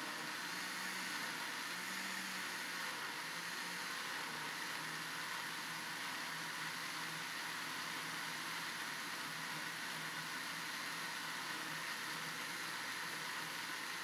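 Countertop blender running steadily at one speed, blending a liquid chocolate batter of eggs, condensed milk, cream, milk, powdered milk and cocoa.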